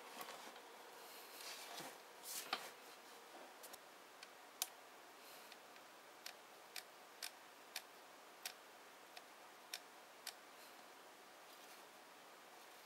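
Sharp little clicks from a Nikon DSLR's controls being worked by hand, about ten single clicks roughly two a second, as the camera's dial and buttons are set, with a little handling rustle before them.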